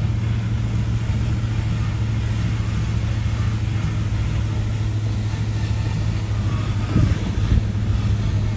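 Steady low rumble of a car driving, engine and tyre noise heard from inside the cabin, with a couple of louder bumps near the end.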